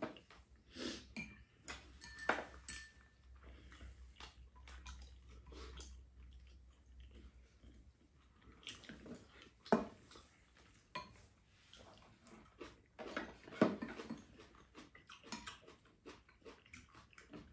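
Spoons and chopsticks clinking and scraping against ceramic bowls and a frying pan during a meal, with a few sharper knocks spread through.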